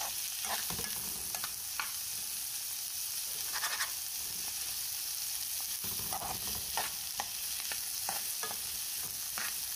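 Chopped onions frying in oil in a metal frying pan, sizzling steadily. A spoon stirs them around the pan, giving scattered scrapes against the pan.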